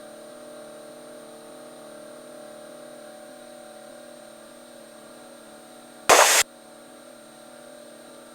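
Cessna 172's piston engine droning steadily in flight, heard through the cockpit audio, with one loud split-second burst of static about six seconds in.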